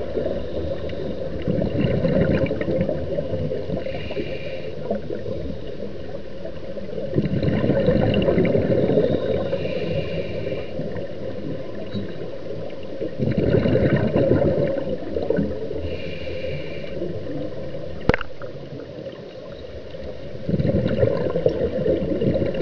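Scuba diver breathing through a regulator. A hissing, whistling inhale comes about every six seconds, alternating with a low, gurgling rush of exhaled bubbles. There is one sharp click about three quarters of the way through.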